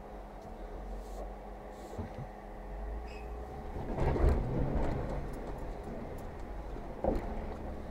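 Jeep Wrangler crawling slowly up a rocky trail: a steady low engine drone that swells louder for about a second around the middle as the Jeep works over rock, with a sharp knock near the end.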